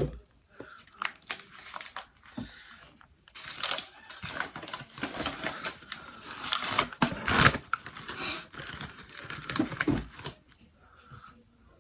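Paper food wrapper crinkling and tearing as a fast-food chicken sandwich is unwrapped. A few light clicks and knocks come first, then several seconds of dense crackling from about three seconds in, easing off near the end.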